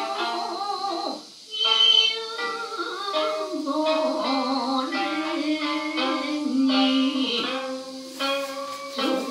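Hauta song with shamisen accompaniment: a singer holds long, wavering notes, with a brief lull about a second and a half in and a few sharp plucked notes near the end.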